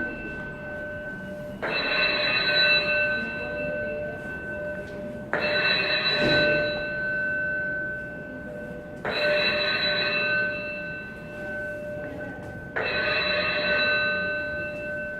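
Building fire alarm signal: a chime-like tone of several pitches sounding together, starting suddenly and fading away. It repeats about every four seconds, four times.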